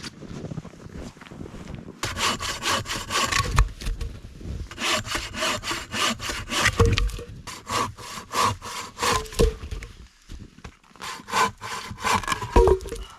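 Hand saw cutting through wood in quick back-and-forth strokes, about three a second, in three bouts with short pauses between.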